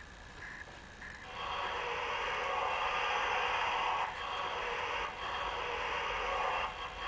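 A steady loud hiss from the standing LGB model locomotive's sound unit, starting about a second in and dipping briefly a few times. Before it, short high beeps repeat about twice a second.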